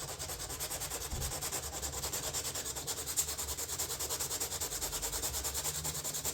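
Sandpaper rubbing over a fiberglass door panel in quick, even back-and-forth strokes, with light pressure. This is levelling a raised step around a repaired crack.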